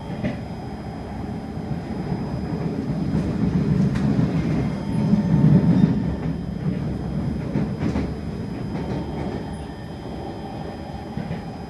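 Running noise of an SMRT Kawasaki C151 metro train, heard from inside the car as it travels on elevated track: a steady wheel-on-rail rumble that swells to its loudest about halfway through, then eases off, with a few sharp clicks along the way.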